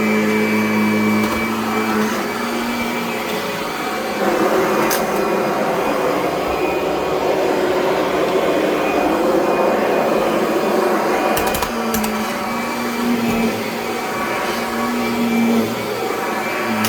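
Kirby Avalir 2 upright vacuum cleaner running on carpet: a steady motor hum with a rushing of air that grows louder and rougher for several seconds in the middle as it is worked over the pile. A few sharp clicks come through.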